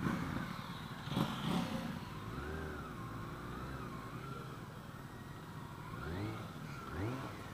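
BMW K1600 GT inline-six engine running under way, its pitch falling near the start and climbing twice in short rises near the end as the throttle is opened, over a steady bed of road and wind noise.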